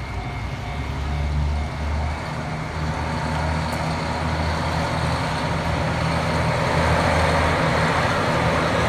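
Road traffic at a level crossing: a heavy diesel road vehicle's engine rumbling over the general traffic noise, which grows louder from about three seconds in.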